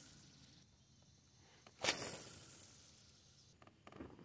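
A cast with a spinning rod and reel: a sudden swish about two seconds in, then line hissing off the spool and fading over about a second. A fainter, shorter swish comes near the end.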